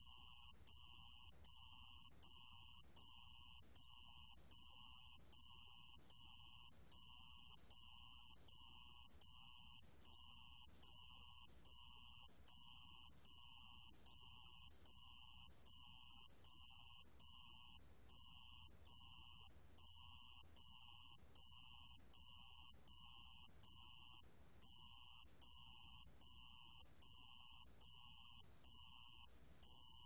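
A 모래방울벌레 cricket singing, recorded at 28 °C: a steady, high-pitched chirping, short trills repeated about twice a second, with a brief pause now and then.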